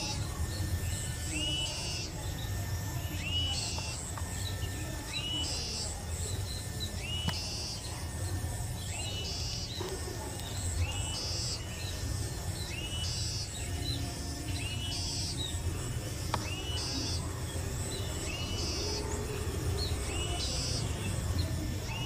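Small bird calls: a short rising chirp, with a higher note, repeating at fairly even spacing about every two seconds over a steady low background.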